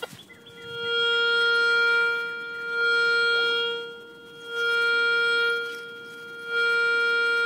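Garrett Euro Ace metal detector in pinpoint mode, giving one steady hum-like tone whose loudness swells and fades about four times as the coil sweeps back and forth over a buried target. The loudest points mark where the target lies.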